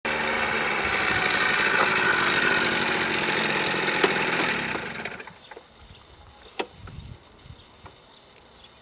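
Motor scooter engine running, dying away about five seconds in. Then quieter, with a sharp click and a few light mechanical knocks at the kick-start lever.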